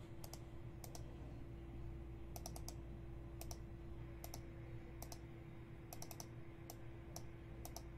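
Scattered clicks of a computer mouse and keyboard, often in quick pairs, over a faint steady electrical hum.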